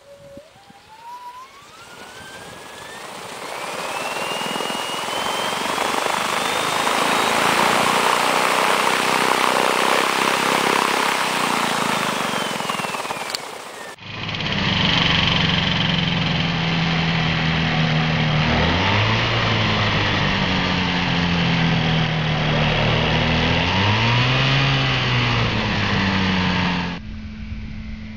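The electric motor and propeller of a Pouchel electric ultralight spool up with a whine that climbs steadily in pitch, then run at full power under a loud rushing hiss. After a sudden cut, a petrol-engined Pouchel ultralight's engine runs with a low drone that revs down and back up twice, then settles to a quieter, steady note near the end.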